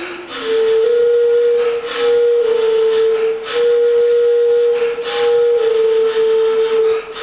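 Xingu jacuí, a large carved-wooden flute, blown in long held notes at one middle pitch that steps slightly up and down. Short gusts of airy hiss break in between notes about every one and a half seconds.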